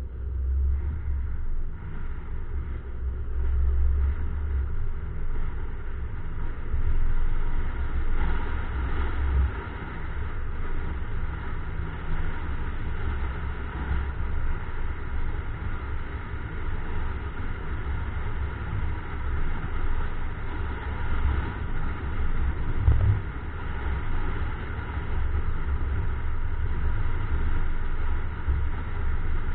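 A moving car heard through an action camera mounted on its outside: a steady, low, rumbling road and wind noise. There is one sharp knock about 23 seconds in.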